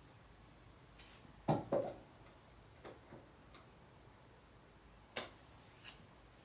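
A few light clicks and taps from hands handling tools on a grand piano action on the bench: two louder knocks about a second and a half in, then several faint ticks.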